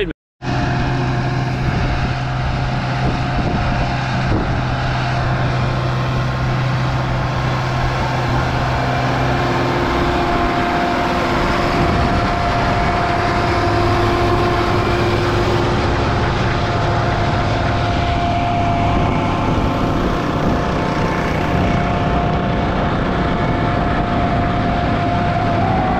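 Tractor engine running hard and steady under load, dragging a weighted pulling sled, with a steady high whine over the engine note.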